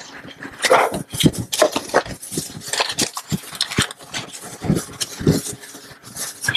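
A paper towel wiped in quick strokes across a lab countertop: an irregular run of rubbing and scuffing sounds.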